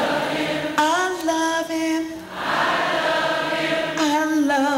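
Slow church singing: a woman's voice holding long notes, with other voices singing along.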